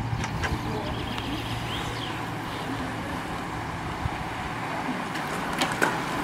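A bunch of road racing bicycles passing close on wet tarmac: a steady rush of tyre hiss and air, with a low hum in the first half and a few sharp clicks near the end.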